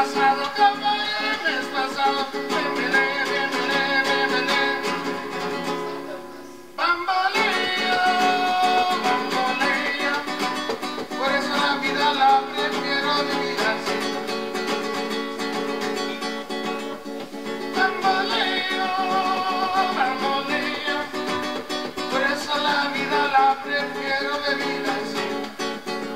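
Acoustic guitar being strummed and picked, with a singing voice over it. About seven seconds in the music fades and breaks off, then starts again abruptly.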